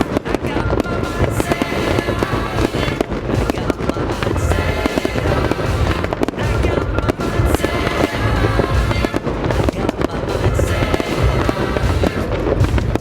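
Fireworks display going off in rapid, continuous pops and bangs with crackling, over music playing loudly.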